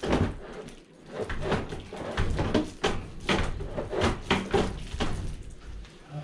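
Irregular knocks, clicks and creaks of a Daikin mini-split indoor unit's plastic casing as it is pushed and handled against its wall mount.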